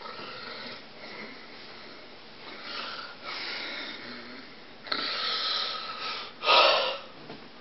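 A man breathing and cloth rustling as he moves close to the microphone: several short noisy hisses, the loudest about a second before the end.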